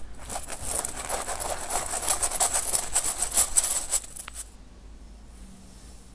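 Damp rice flour being rubbed by hand through a stainless steel mesh sieve: a dense, scratchy rasping of quick strokes against the wire mesh that stops about four and a half seconds in.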